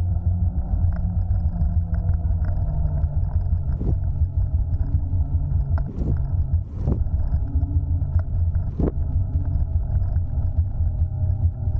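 Wind buffeting the microphone and road rumble during an electric scooter ride, steady throughout, with a few sharp knocks about four, six, seven and nine seconds in.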